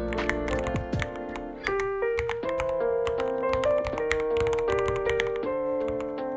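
Rapid typing on a Ducky One 3 mechanical keyboard, a quick, uneven run of keystroke clicks, over background music with held melodic notes.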